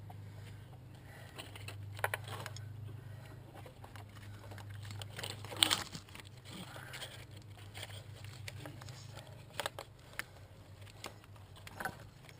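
Scattered sharp clicks and light knocks of hand tools and parts being handled on an open engine top end, the loudest about halfway through, over a steady low hum.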